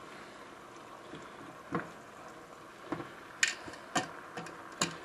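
A cooking utensil stirring a pan of simmering shrimp and tomato sauce, with about five scrapes and taps against the pan starting about two seconds in, over a faint steady bubbling.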